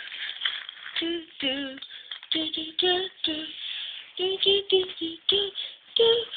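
A child's voice singing a wordless tune in about a dozen short, separate notes.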